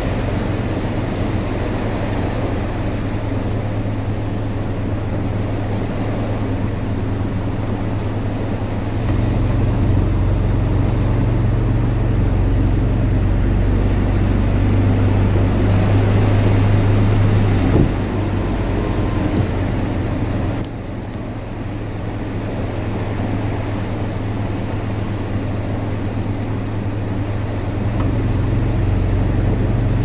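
A steady low engine hum, like a motor vehicle running near the microphone, holding one even drone that grows a little louder about a third of the way in and drops back about two-thirds of the way through.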